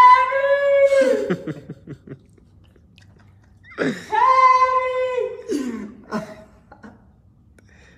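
A man's two long, high-pitched falsetto cries, each held for about a second and then breaking into a falling, croaking tail; the second starts about four seconds in.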